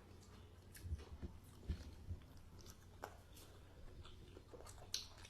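Faint close-up chewing and eating, with soft mouth sounds, a few low thumps and several small sharp clicks.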